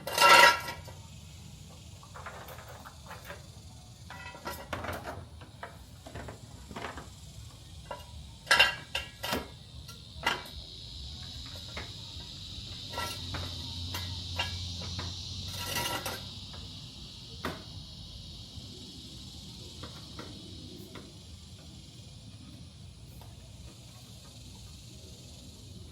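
Scattered metal clanks and knocks as a floor jack and jack stands are handled and set under a car, a sharp one at the start and a quick cluster about nine seconds in. A steady high hiss swells through the middle and then fades.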